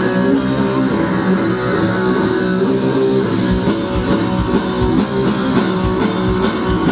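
Rock band playing: electric guitar with drum kit, the kick drum beating steadily from about halfway in.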